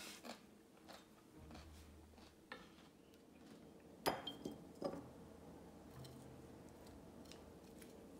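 Chopsticks clinking against a glass jar as slices of Korean melon are put in: one sharp clink with a short ring about four seconds in, then two lighter taps. Before that come soft taps of melon slices being gathered on a bamboo cutting board.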